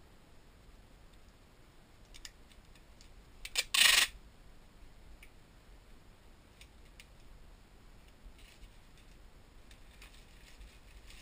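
Packing tape ripped off the roll in one short, loud pull about four seconds in, with a few small clicks before it. Later, faint crinkling and clicks of a plastic poly mailer being handled.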